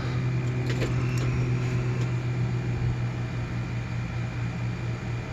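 Steady low machine hum, with a few light clicks about a second in.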